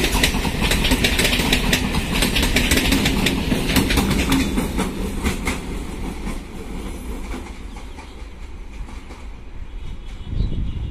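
Electric suburban multiple-unit train passing, its wheels clattering rapidly over the rail joints; the clatter thins out and fades over the second half as a train draws away.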